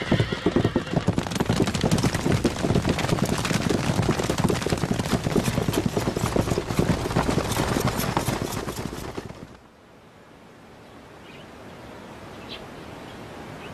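Horses galloping: a dense, rapid clatter of many hoofbeats that stops suddenly about nine and a half seconds in. A faint outdoor background follows, with a few short high chirps.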